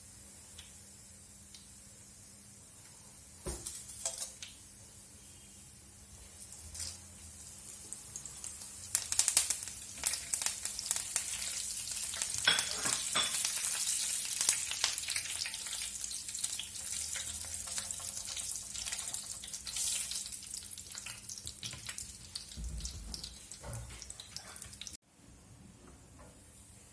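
Food sizzling and crackling in hot oil in a pan, with many small pops. The sizzle builds up after a knock, is loudest for a few seconds, eases off, then cuts off suddenly near the end.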